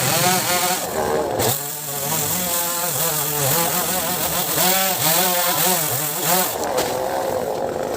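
Chainsaw engine running at high revs, its pitch dipping and recovering over and over as the throttle is worked or the chain bites.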